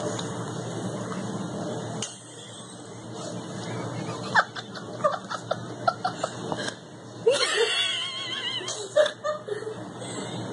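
Giggling laughter in a run of short bursts, with one longer, louder laugh near the middle. A steady rustling noise fills the first couple of seconds.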